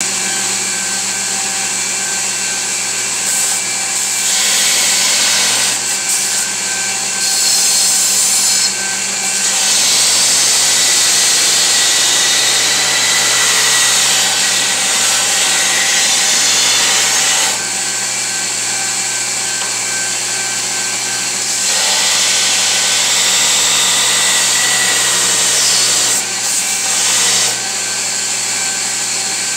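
Belt grinder running steadily with a hum, while the steel of a chef's knife blank is pressed against the moving abrasive belt to profile its outline. Several grinding passes each add a loud hiss over the motor, the longest lasting about seven seconds.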